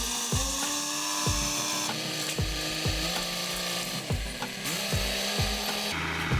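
Background electronic music with a kick-drum beat about once a second over sustained synth tones, with a rasping hiss in the treble.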